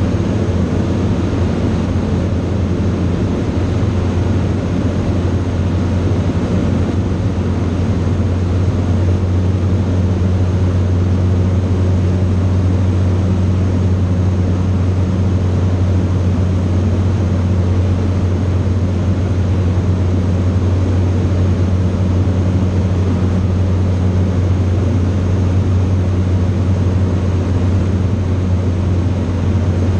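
Steady cabin drone of a Grumman Cheetah light aircraft in cruise: its four-cylinder piston engine and propeller running at constant power, a low even hum under the hiss of the airflow, heard from inside the cockpit.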